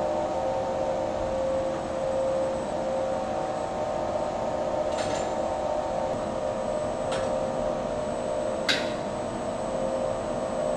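Steady hum of production-line machinery with several held tones, broken by three sharp clicks a couple of seconds apart as parts are handled at the work station.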